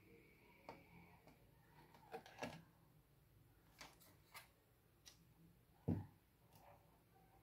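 Faint scattered clicks and light knocks of a motherboard being handled and turned over on a workbench, with one louder low knock about six seconds in as the board is set down.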